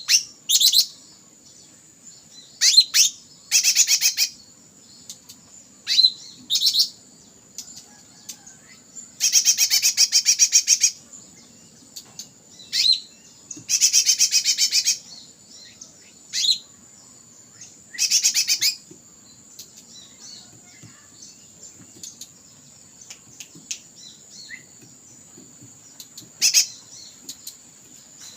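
A group of young cakrante birds calling: bursts of rapid, high trilling chirps about a second or more long, with short sharp single chirps in between. A steady high-pitched tone runs underneath.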